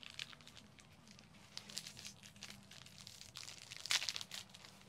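Plastic snack wrapper crinkling as it is torn open: a run of crisp crackles, loudest in a burst about four seconds in.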